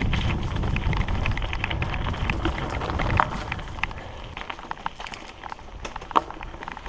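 Mountain bike tyres crackling over dry leaves and gravel on a dirt singletrack, with rattles and knocks from the hardtail bike over bumps, the sharpest about three and six seconds in. A low wind rumble on the microphone fades about halfway through.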